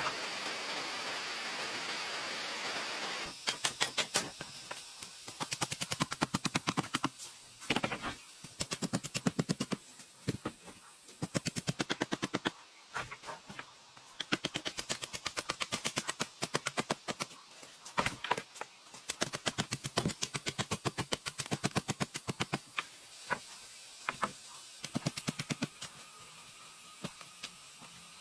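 A steady hiss for about the first three seconds, then rapid runs of sharp taps or knocks, many to the second, coming in short bursts with brief pauses between them.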